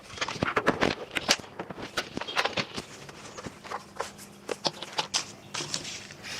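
Plastic canister-filter parts and packaging being handled: irregular clicks, light knocks and rustling as the pieces are taken out and fitted together.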